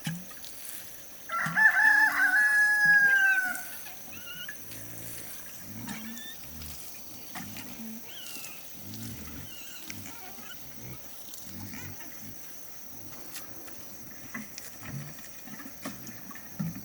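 A rooster crows once, a single drawn-out call starting about a second in, lasting about two seconds and dropping in pitch at the end. Softer low repeated sounds and faint small bird chirps continue around it.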